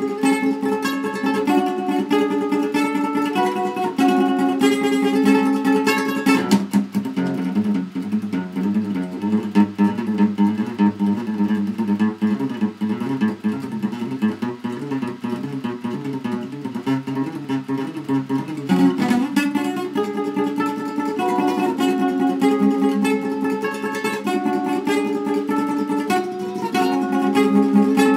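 Classical guitar played solo: ringing picked chords, then from about six seconds in a long stretch of fast, rapidly changing notes, returning to ringing chords about nineteen seconds in.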